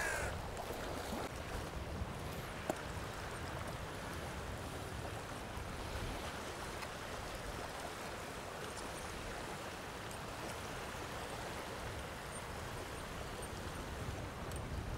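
Wind blowing across the microphone: a steady rushing noise with uneven low rumbles of buffeting.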